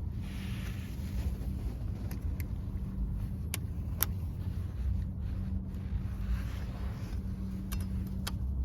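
A car running steadily: a low rumble with a constant hum, broken by a few sharp clicks.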